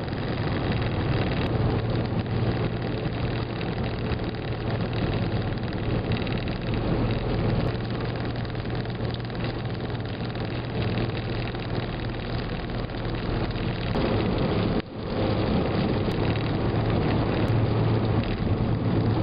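Steady road and engine noise inside a car cruising on a freeway, with a low drone underneath. The sound briefly drops out for a moment about three-quarters of the way through.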